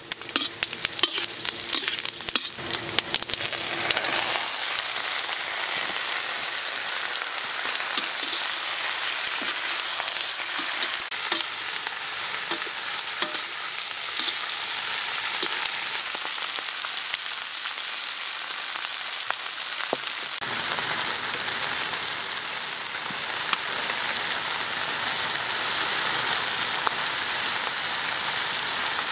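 Lemongrass, garlic, chillies and pieces of shark stir-frying in a wok: a metal spatula clicks and scrapes against the pan for the first few seconds, then a steady sizzle of frying takes over from about four seconds in.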